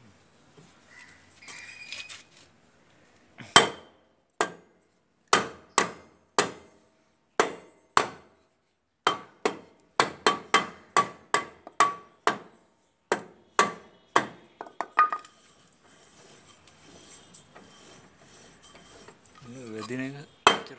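Steel brake drum of a Bajaj three-wheeler's rear wheel being knocked around its rim with a wooden block: a run of about two dozen sharp knocks, some with a short metallic ring, starting a few seconds in and stopping after about ten seconds.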